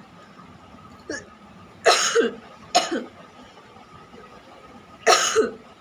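A person coughing forcefully: a faint short cough about a second in, two loud coughs close together, then another loud cough near the end.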